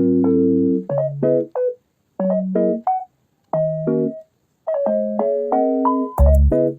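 Background music: a keyboard with a piano-like sound plays short chords over bass notes in stop-start phrases with brief silences between them. Drum hits come in near the end.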